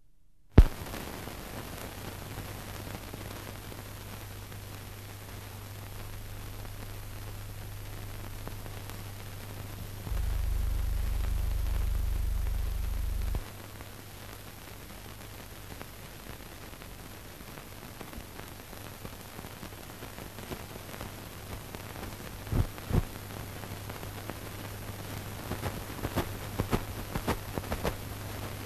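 Steady hiss and low hum of a soundtrack with no recorded sound, with a sharp click at the start and scattered crackles and pops that come more often toward the end. A louder, deeper hum swells in for about three seconds near the middle, then drops away suddenly.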